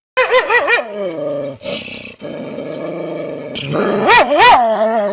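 A dog vocalizing in drawn-out calls that rise and fall in pitch, with a lower, steadier stretch in the middle and the loudest calls near the end.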